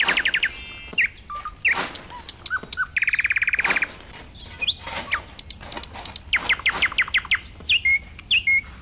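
Birds chirping and trilling, a mix of short whistled notes and rapid trills, with one long fast trill about three seconds in.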